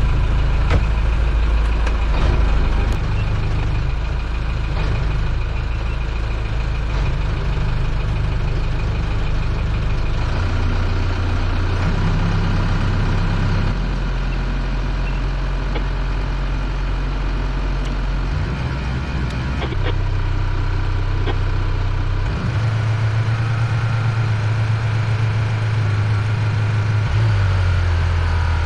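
Towboat's engine running under load while towing a large motor yacht, its note stepping up and down several times as the throttle is changed.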